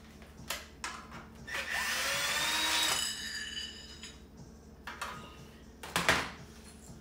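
Cordless drill driving a screw into the cart's wooden shelf for about a second and a half, its motor whine rising in pitch as it spins. Several sharp knocks of the metal and wood parts being handled come before and after, the loudest near the end.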